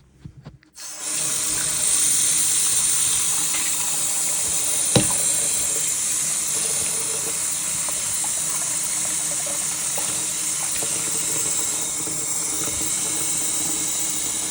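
Water running from a faucet, filling a bath basin; it starts about a second in and then runs steadily. A single sharp knock about five seconds in.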